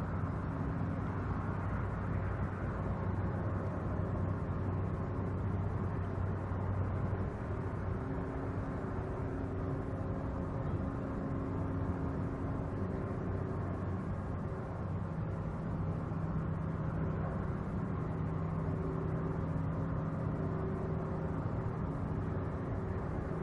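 Container ship's engine droning steadily as it passes at close range: a low, continuous hum carrying several steady tones.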